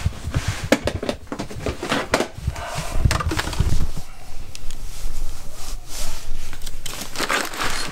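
Rummaging through a plastic storage bin of packaged items: irregular clattering, scraping and rustling. Low thumps in the first half come from the handheld camera being moved.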